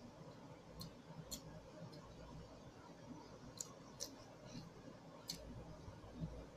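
Faint eating sounds: a handful of soft, sharp clicks spread through, as someone chews and eats rice by hand from a plate.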